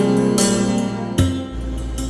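Background music: plucked strings picking out notes over sustained low tones, fading out about a second and a half in, leaving a low steady hum.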